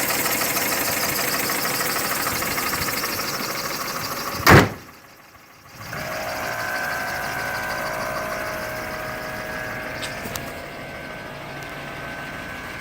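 Mercedes M272 V6 engine running with a knock, which the owner puts down to a stretched timing chain or scored cylinders. About four and a half seconds in there is a single loud bang; the sound drops away for about a second, then the engine is heard again, quieter, with a thin steady whine.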